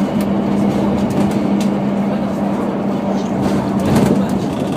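Inside a moving Scania OmniDekka double-decker bus: a steady engine and drivetrain hum under road noise, with light rattles from the body. About four seconds in there is a brief louder rush, and the steady hum drops away just after it.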